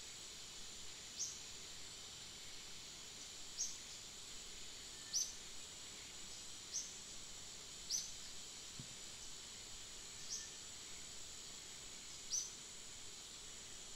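Steady, high-pitched chorus of insects, with a short high chirp repeating every second or two.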